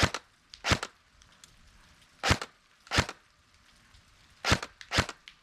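Airsoft rifle fired on semi-automatic: six single shots, each a short sharp crack, at uneven intervals.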